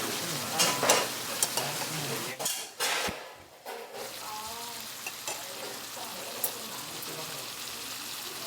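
Budae-bokkeum sizzling as it fries in a pan, a steady hiss, with a few sharp clicks in the first couple of seconds and a brief dip about three seconds in.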